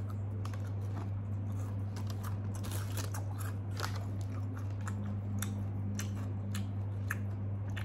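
Biting and chewing a homemade chocolate chip cookie that has baked crunchy rather than soft and chewy: many irregular crisp crunches, over a steady low hum.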